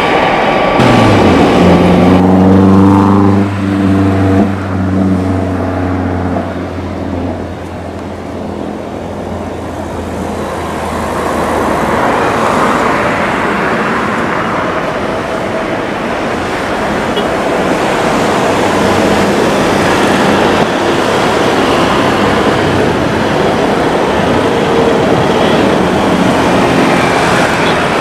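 A steady, low engine hum for the first several seconds. It gives way to a broad jet roar that swells gradually as a CRJ1000 regional jet's twin rear-mounted turbofans power up for its takeoff run.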